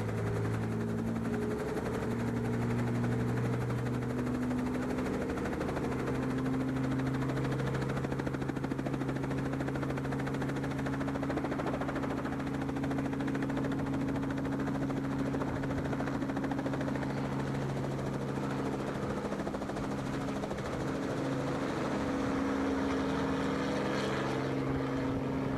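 Helicopter running steadily in flight: a continuous engine-and-rotor drone that shifts slightly in pitch now and then.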